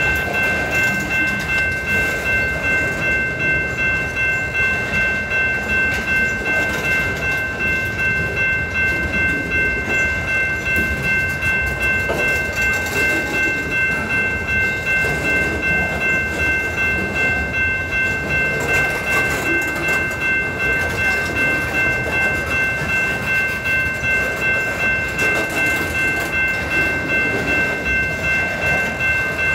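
Freight train boxcars rolling past at close range, the wheels clattering over the rail joints in a steady rhythm of about two beats a second, with a steady high ringing tone over the top.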